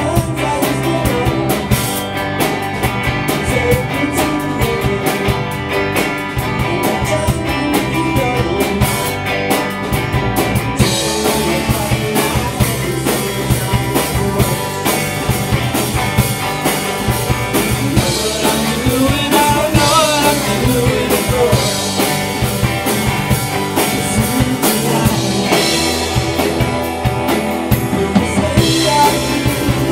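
Live rock band playing: drum kit and guitar with singing, steady and loud, the sound getting brighter and busier about eleven seconds in.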